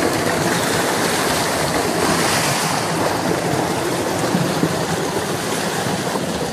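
Tubewell outlet pipe gushing a thick stream of water into a concrete tank: a steady rushing and splashing.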